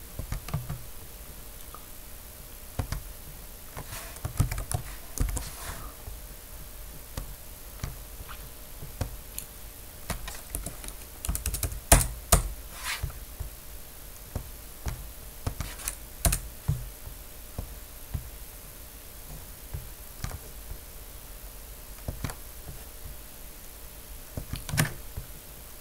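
Irregular keystrokes on a computer keyboard, coming in scattered runs of taps with pauses between, the loudest cluster about halfway through.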